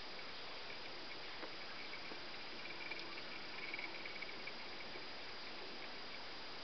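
Faint whine of a model-railway turntable's stepper motor turning the bridge, growing a little louder about three seconds in, over a steady hiss.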